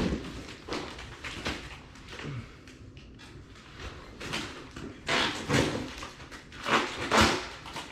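Packaging being handled as a box is opened: rustling and scraping, with a run of louder scraping noises in the last few seconds.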